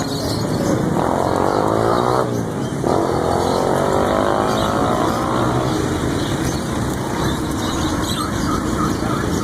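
Street traffic with a motor vehicle engine revving twice, rising in pitch each time, over a steady traffic hum.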